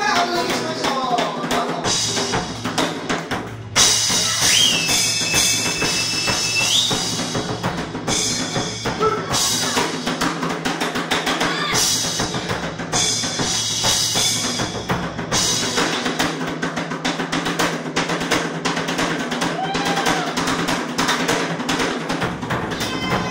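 Live Okinawan folk band playing an instrumental passage: sanshin and acoustic guitar over drum kit, with cymbal washes that start and stop every few seconds.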